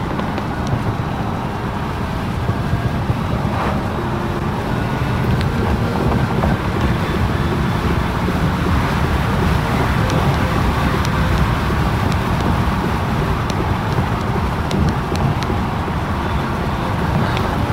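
A car on the move: steady engine and road rumble with some wind noise, growing slightly louder over the first few seconds.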